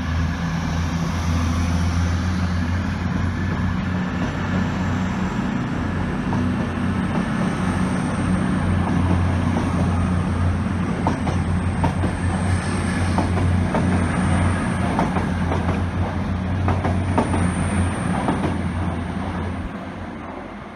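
Two coupled CrossCountry Voyager diesel-electric trains pulling out along the platform: a steady low drone from their underfloor diesel engines, with wheels clicking over rail joints. The sound fades near the end as the train runs away under the bridge.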